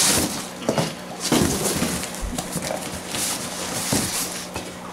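A cardboard shipping box being opened by hand: its flaps scrape and rustle, with a few hollow knocks of cardboard.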